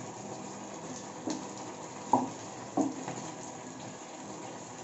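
Wooden spatula stirring in a non-stick kadai of simmering sauce with noodle balls, knocking against the pan three times, loudest about two seconds in, over a steady hiss.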